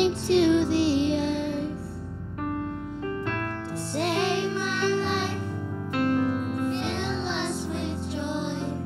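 Children's choir singing a Christmas song with keyboard accompaniment, in three sung phrases with the keyboard chords held between them.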